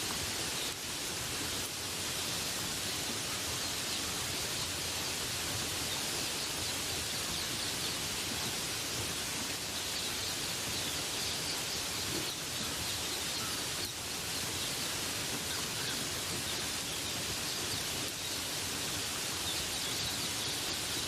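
Steady rain falling in a forest, an even hiss with no breaks, with faint bird calls now and then.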